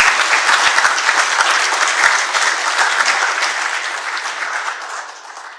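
An audience applauding, the clapping dying away near the end.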